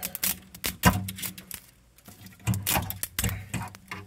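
Thin 3D-printed PLA baseplates clicking and snapping in the hands as fused printed layers are pried apart: an irregular run of sharp clicks, the loudest about a second in.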